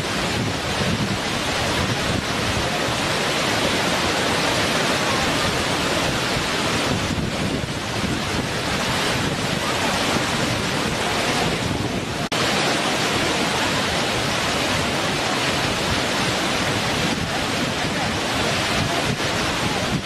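Waterfall: a steady, even rush of falling water, with a brief dip and change in the sound about twelve seconds in.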